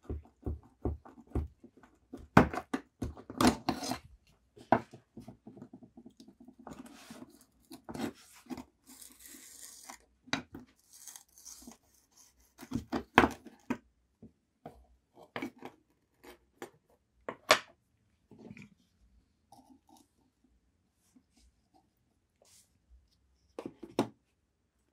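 A rusty vintage Bon Clou can opener being handled on a wooden bench: irregular clicks and knocks of its steel parts against each other and the wood, with stretches of scraping in the first half and a few more knocks near the end.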